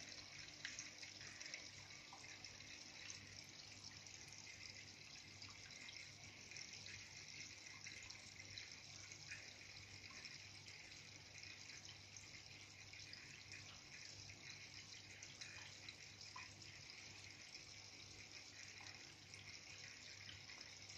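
Faint, steady trickle of water circulating in a paludarium, with a low steady hum underneath.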